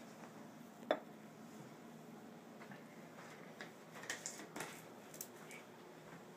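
Dishes being handled on a wooden table: one sharp knock about a second in, then a scatter of light clinks and taps a few seconds later.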